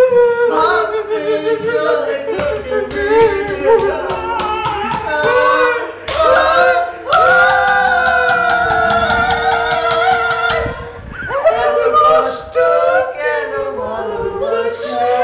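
A man singing a Bengali song in a mock-emotional, strained way over a strummed acoustic guitar, with one long held note about halfway through.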